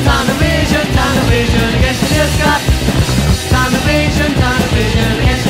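Rock band recording playing: steady drums and bass under a pitched melody line.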